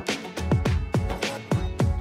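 Background music with a steady beat and deep bass-drum hits that fall in pitch.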